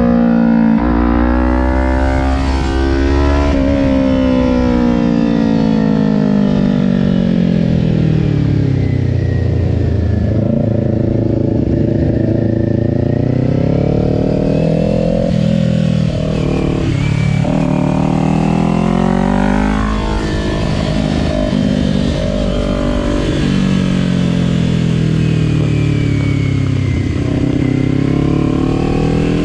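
Kawasaki Ninja 400's parallel-twin engine heard on board at track speed. Its pitch falls and rises repeatedly with throttle and gear changes through the corners, with several quick drops and climbs about halfway through.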